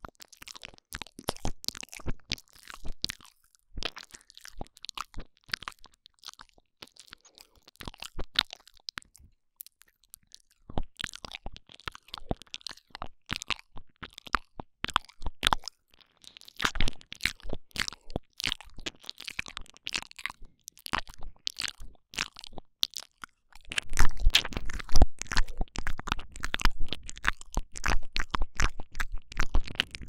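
Close, wet mouth sounds into a binaural microphone: rapid tongue clicks, lip smacks and sucking, the 'ear eating' and tongue-shaking sounds of ASMR. There is a short pause about ten seconds in, and from near the end it grows louder with a deep rumble as the mouth comes right up against the microphone.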